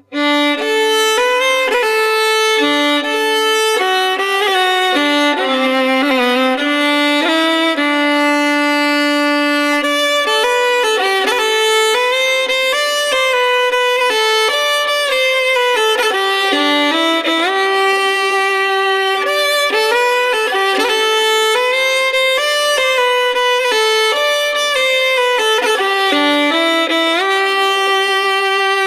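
Solo violin playing a melody of held notes with vibrato, starting abruptly, recorded through a United UT Vintage87 large-diaphragm condenser microphone as a sound test.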